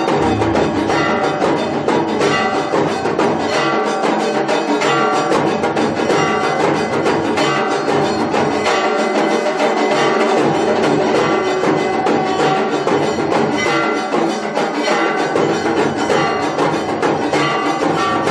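Hindu temple aarti music: bells ringing over fast, continuous drum and percussion strikes, dense and unbroken.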